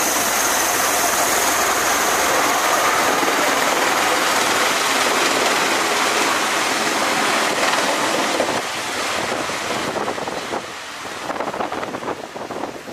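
CMV-22B Osprey's twin proprotors and turboshaft engines heard at close range: a loud, steady rush with a faint high whine. The sound eases after about eight seconds as the aircraft climbs away, and gusts of wind buffet the microphone near the end.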